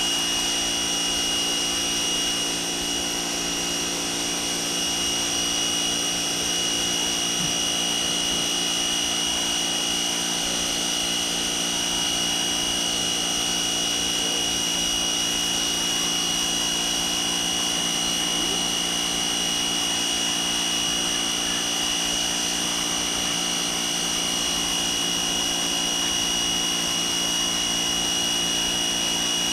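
A pressure washer running steadily at high pressure, its motor and pump giving a constant whine over the hiss of the spray, with no let-up.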